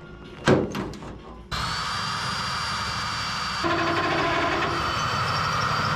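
A short thump, then a power drill runs steadily with a high whine, drilling out a car body spot weld with a spot weld cutter bit; its tone shifts a little past halfway.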